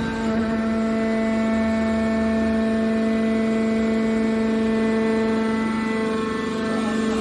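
Hydraulic power unit of an aluminium can scrap baler running with a steady hum.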